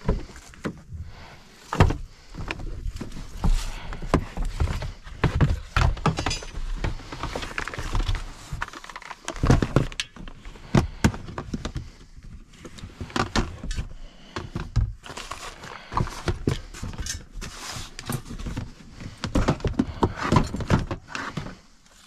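A pickup truck's door opening, then rummaging through gear in the cab: repeated knocks, rattles and thuds as plastic storage totes and their lids are shifted and lifted out.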